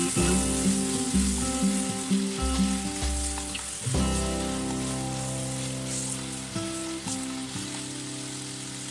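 Chicken pieces frying in hot oil and sauce, a steady sizzle, under background music with held notes and a bass line.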